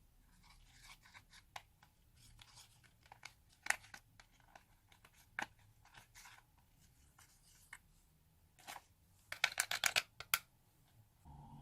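Slime being squished and stretched by hand, giving scattered sticky clicks and pops, with a quick run of crackling pops about nine seconds in.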